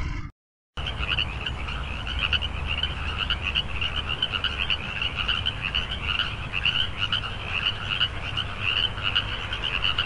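Frogs croaking in a dense, rapid stream of short calls that starts about a second in, with a low rumble underneath.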